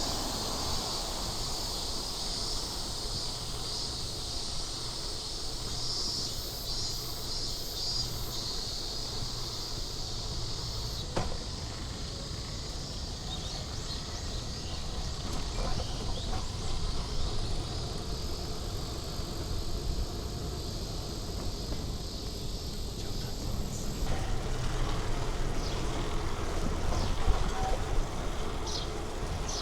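Outdoor street ambience: a steady low traffic rumble under a continuous high insect drone, with a faint click about eleven seconds in.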